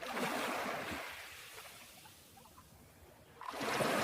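Gentle ocean waves washing onto a beach. One swell of surf comes in at the start and fades over about two seconds, and the next rises near the end.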